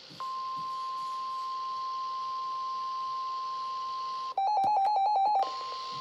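NOAA weather radios sounding the steady 1050 Hz warning alarm tone, the signal that a weather warning is being broadcast. About four seconds in, a louder run of rapid electronic beeps, about nine a second, sounds for about a second, and then the steady tone carries on.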